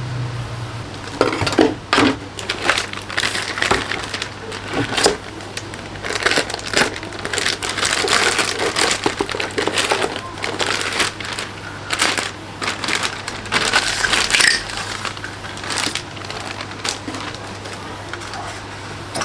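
Clear plastic wrapping crinkling and rustling in irregular crackles as large plastic model-kit parts are pulled out of their bags and handled in a cardboard box. It settles down near the end.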